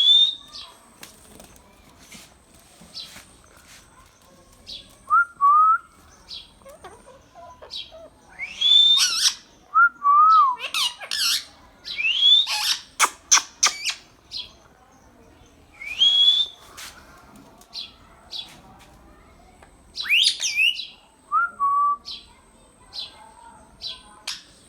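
Pet Indian ringneck parakeet whistling and calling in short scattered bursts, with several rising whistles, a few lower warbled notes and some sharp clicks, with quiet pauses between.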